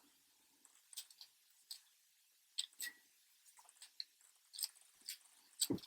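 Faint, irregular clicks and light scrapes of a lock pick working the pins of an acrylic practice lock held under tension, feeling for the binding pin, with a slightly louder knock near the end.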